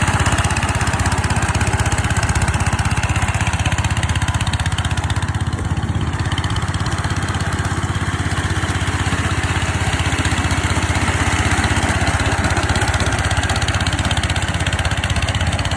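Rice-field hand tractor's small engine running steadily at an even speed.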